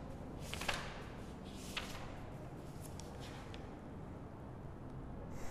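Pages of a thick paperback textbook being turned by hand: a few short paper rustles, the strongest about a second in and another near two seconds, then fainter ones, over a steady low hum.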